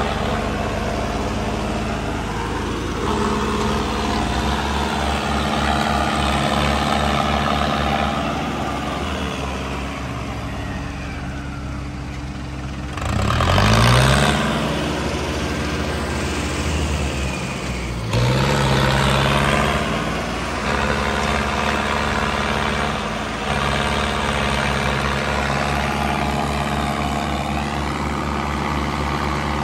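Diesel tractor engines running under load while a Mahindra Arjun Novo 605 DI-i tractor tows a second tractor that is stuck in mud. The engine revs up sharply about halfway through and again a few seconds later.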